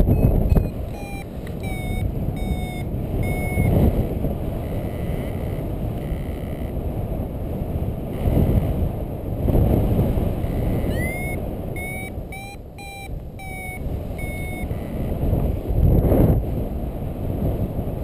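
Paraglider variometer beeping in short chirps, some sliding up in pitch, in uneven runs with gaps, the climb tone that signals lift. Under it, steady wind rush on the microphone swells in gusts.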